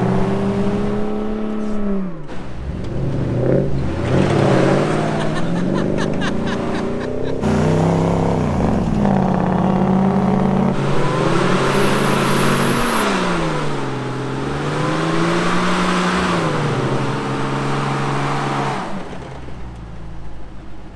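Two lifted off-road Jeeps revving hard under full load as they pull against each other through a tow strap on soft sand, their tires spinning in the sand. The engine pitch climbs and sags several times as the throttle is worked, then drops away near the end.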